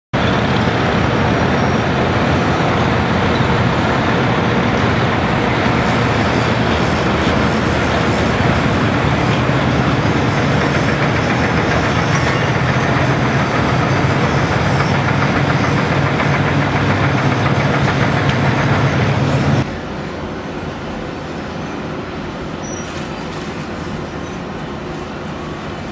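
Caterpillar 345B L hydraulic excavator's diesel engine running steadily under load, loud, with a heavy low drone. About three-quarters of the way through, the sound cuts off abruptly to quieter, more distant construction-site noise.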